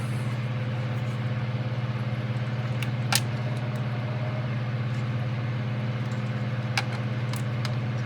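A steady low hum, with a few sharp clicks of plastic model parts being handled and fitted together: one about three seconds in, another near seven seconds.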